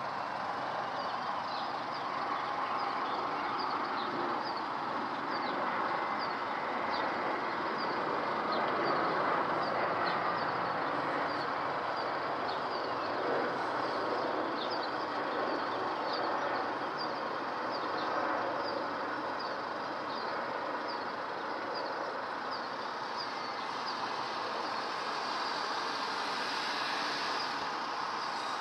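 Boeing 757-300 airliner on approach, its jet engines making a steady distant rumble that swells a little about a third of the way in and then eases. A small bird chirps repeatedly at high pitch over it.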